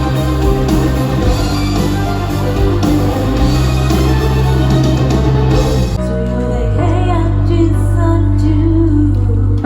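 Live stage-musical music with a band or orchestral backing and singing. About six seconds in, the full arrangement drops away to softer sustained accompaniment under a singing voice.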